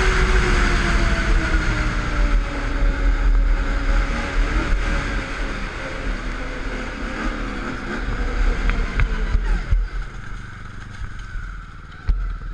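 Snowmobile engine running under way, its pitch sinking steadily as the sled slows. About ten seconds in the engine note drops away sharply and it runs much quieter, with wind rumble on the microphone and a couple of knocks near the end.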